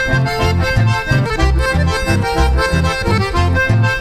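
Instrumental chamamé passage led by accordion, with steady alternating low bass notes marking the rhythm underneath.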